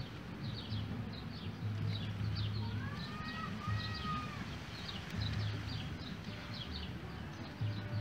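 Short, high, falling chirps repeated in small groups throughout, from small animals calling, with a brief arched whistle about three seconds in and an uneven low rumble on the microphone underneath.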